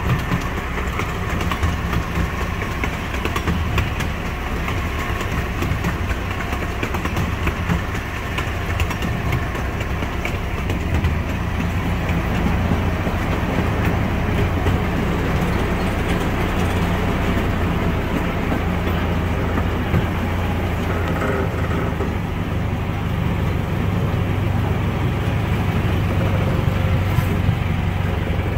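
Miniature park ride train running along its narrow-gauge track, heard from on board: the locomotive's engine drones steadily under the rattle and clicks of the wheels on the rails.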